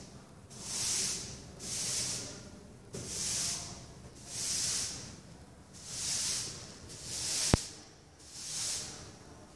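A rhythmic hiss that swells and fades about once a second, with one sharp click about seven and a half seconds in.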